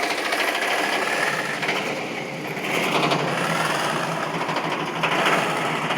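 Van engine held at raised revs to blow out a clogged catalytic converter, the exhaust pulsing fast and steady; the revs pick up a little about three seconds in.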